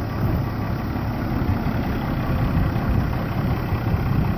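Dodge D250 pickup's Cummins diesel engine idling steadily, its exhaust now running through a freshly reattached muffler.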